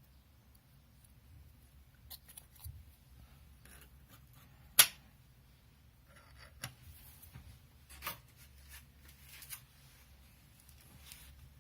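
Hands working on a QNAP TS-253A NAS's chassis and parts: scattered clicks, taps and short scrapes of hard plastic and metal, with one sharp click about five seconds in.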